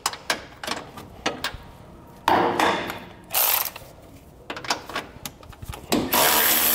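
A socket ratchet clicking in short runs as the nut on a bumper-beam stud is backed off. About six seconds in, a cordless power ratchet starts running steadily.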